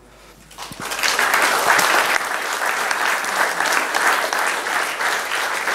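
Audience applauding: the clapping builds up about a second in and then goes on steadily.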